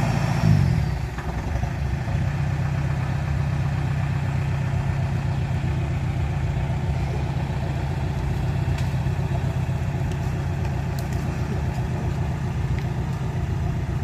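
Kubota DC70 combine harvester's diesel engine running steadily. About half a second in its note shifts briefly with a short jump in level, then it settles back to an even run.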